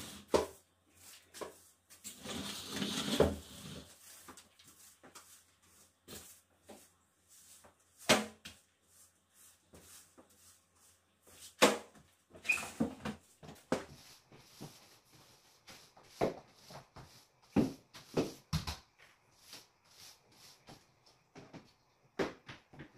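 Broom sweeping a hardwood floor: intermittent bristle swishes, a longer brushing stretch about two to three seconds in, and scattered knocks and taps.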